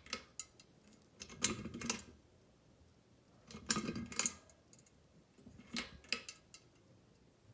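Pull-chain switch of a Hampton Bay Littleton ceiling fan's light kit clicking as the chain is pulled several times, with the chain and the loosely fitted glass globe rattling in short clusters of clatter.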